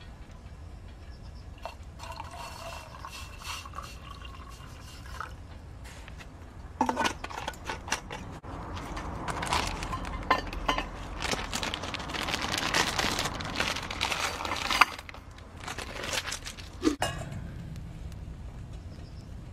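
Stainless steel camp cookware clanking, with liquid poured into a metal vessel for several seconds in the middle, set between sharp metal clinks.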